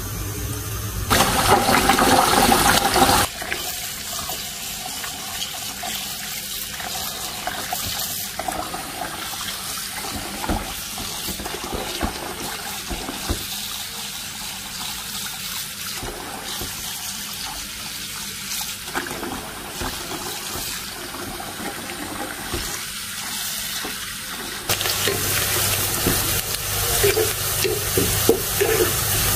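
Tap water running into a plastic bowl as long-grain rice is rinsed by hand, with splashing. Near the end, sliced onions sizzle in oil in a pan as they are stirred with a spatula.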